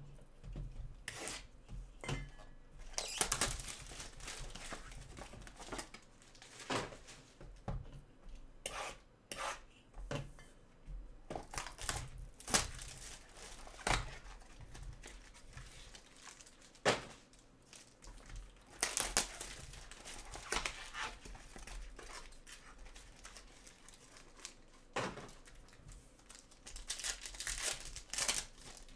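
Trading card box and pack wrappers being torn open and crinkled by hand: irregular rustling, crackling tears and small handling clicks.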